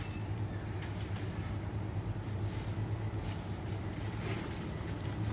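Steady low hum of a supermarket's background machinery, with a few faint soft ticks about halfway through and near the end.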